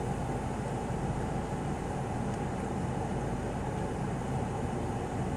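Steady low rumble of a vehicle engine running, with an even hum and no change in level.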